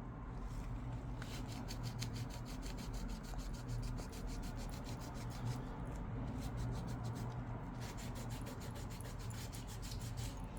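Rapid back-and-forth scraping and rubbing of old adhesive residue off the edges of an iPad 2 frame, several strokes a second, in two runs with a short pause between them.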